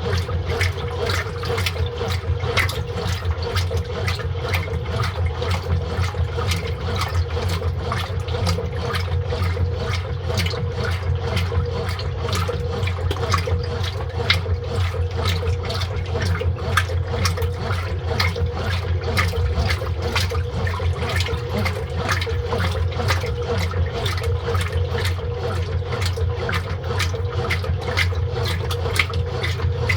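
Brastemp Total 7 kg (BWL07) washing machine running mid-wash: water rushing and splashing steadily over a constant low hum.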